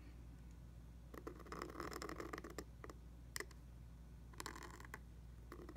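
Pointed steel nib in an oblique dip pen holder scratching across paper while writing a copperplate letter: two faint scratchy strokes, about a second in and about four and a half seconds in, with a sharp tick between them.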